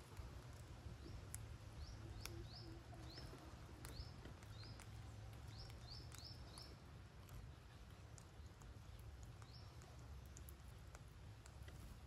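Faint, short, high chirps that rise quickly, some coming in quick runs of two or three, from green parakeets perched on a tree trunk. A low steady hum and a few soft clicks lie under them.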